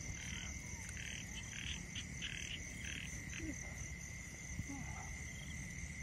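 Frogs croaking in short repeated calls over a steady high-pitched insect trill. The croaks die away about halfway through while the trill goes on.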